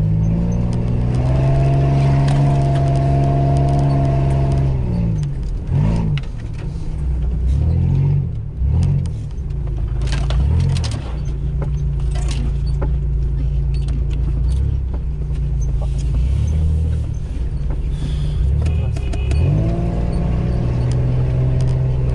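Mitsubishi Pajero's 3.0-litre V6 petrol engine heard from inside the cabin, working through mud. It revs up about a second in and holds, drops back after about five seconds, then runs at lower, wavering revs, and climbs again near the end. Scattered knocks and rattles come from the body.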